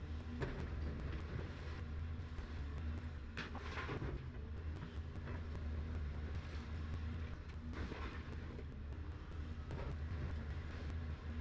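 Excavator's diesel engine running steadily at a low hum, with two brief louder noises from the machine working, a few seconds in and again later.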